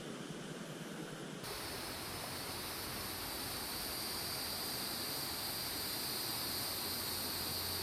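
Steady rushing of flowing creek water. About a second and a half in, the rush abruptly becomes brighter and a little louder, then holds steady.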